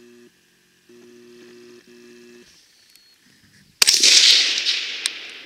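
A single AR-15 service rifle shot about four seconds in: a sharp crack followed by a long fading echo. Before it, a faint steady low hum comes in two short stretches.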